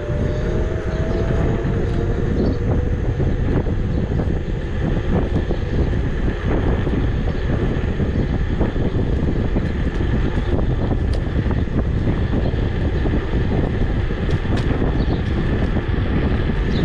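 Wind buffeting the microphone and road noise from an Emove Cruiser electric scooter under way. In the first couple of seconds a whine rises in pitch as the scooter pulls away and gathers speed.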